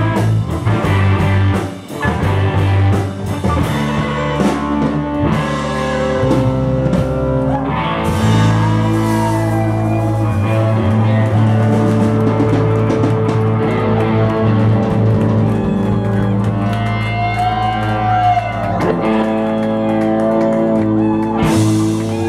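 Live rock band jamming: two electric guitars, one a Telecaster-style, over keyboard and drums, with the lead guitar bending notes.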